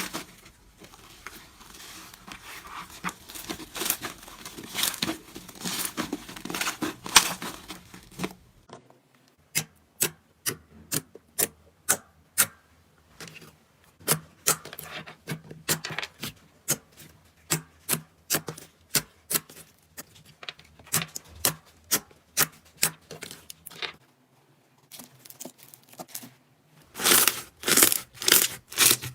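Slime being squeezed and worked by hand close to the microphone, with dense crackling at first. After a change in clip it turns into a run of sharp popping clicks at about two a second, and the crackling returns near the end.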